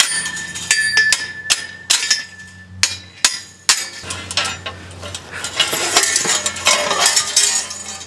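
A steel wire strainer being knocked loose with a hammer and lifted off the strained fence mesh: a run of sharp metal knocks and clinks. A ringing metal note sounds through the first couple of seconds, and a denser clatter comes in the second half.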